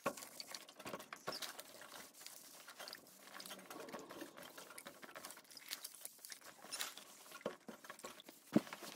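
Clothes iron sliding back and forth over satin fabric on an ironing board: quiet rustling and scraping with many small irregular clicks.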